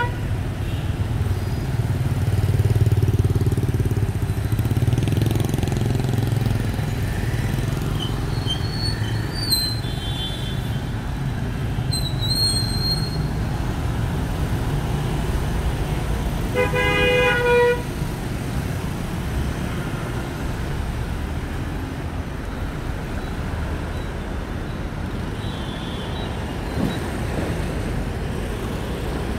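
Busy city street traffic, mostly motorbikes and cars passing close by with a steady engine rumble. A vehicle horn sounds for about a second a little past the middle, and a few short high beeps come earlier.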